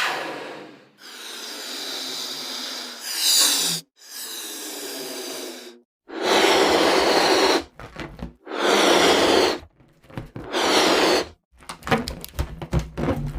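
Balloon-inflating sound effects: a series of separate hissing bursts of rushing air, each about one to three seconds long with short silences between them, followed near the end by a quick run of clicks and knocks.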